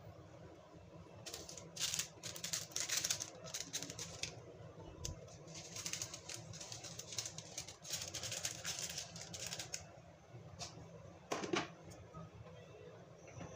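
Clams in a hot frying pan, giving two stretches of rapid clicking and crackling. About eleven seconds in, a single knock as the glass lid is set on the pan.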